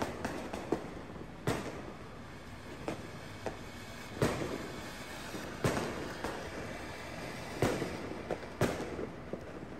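Ground fountain firework spraying sparks with a steady hiss, broken by sharp firecracker bangs every second or two, about five loud ones with smaller pops between.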